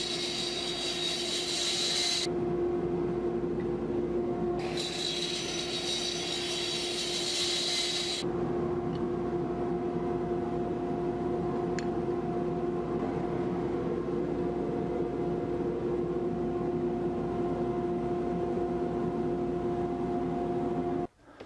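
Miter saw cutting through a hardwood board twice, each cut lasting a few seconds, over a steady motor hum that stops abruptly near the end.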